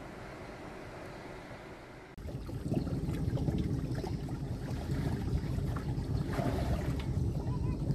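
Open-air river ambience: water lapping around a moored wooden boat, a steady low wash that becomes louder and rougher from about two seconds in.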